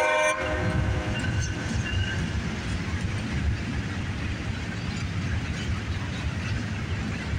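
A diesel locomotive horn cuts off a moment in, then a freight train rolls past with a steady low rumble of wheels on rail.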